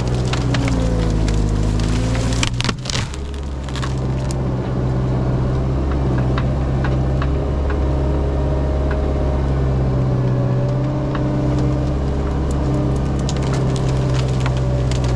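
The diesel engine of a piece of earthmoving equipment runs under load while pushing trees and brush. Its pitch sags about a second in and recovers. Wood snaps and splinters over it, with a sharp crack about three seconds in and more cracking near the end.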